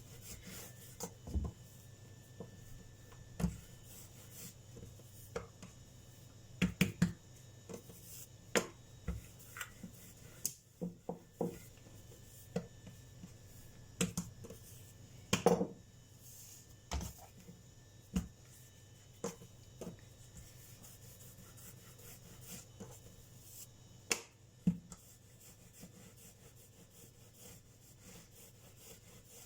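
Hands shaping small pieces of chebakia dough on a work surface: scattered soft knocks, taps and rubbing at irregular intervals, over a faint steady low hum.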